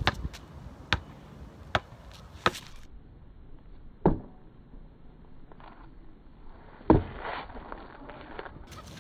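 Basketball dribbled on an outdoor asphalt court: sharp single bounces, about one every 0.7 s at first, then slower, with the loudest bounce about seven seconds in.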